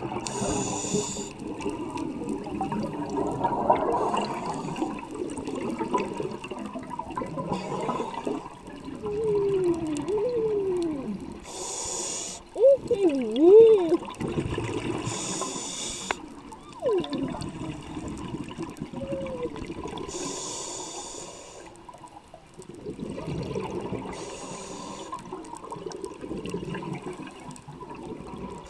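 A scuba diver's voice through the regulator underwater: muffled vocal sounds sliding up and down in pitch, loudest about halfway through. Bursts of exhaled regulator bubbles come about every four seconds.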